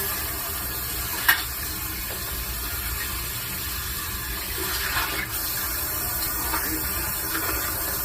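Kitchen sink tap running steadily, water splashing into the sink, with one sharp clink about a second in.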